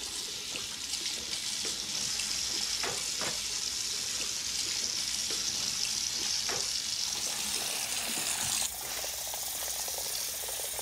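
Water running from a bathroom tap into the sink and splashing over hands, a steady hiss that drops suddenly about nine seconds in.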